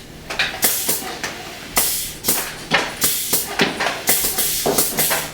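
Pneumatic air valve and cylinder on a lunging skeleton prop venting compressed air in a quick series of irregular hissing blasts, about two a second.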